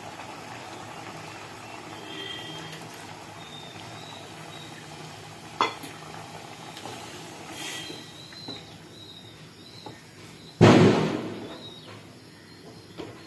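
Cookware sounds over a steady low hiss: a single sharp knock about five and a half seconds in, then a louder clatter of a wooden spatula against the aluminium kadai of simmering kurma near the end, fading over about a second.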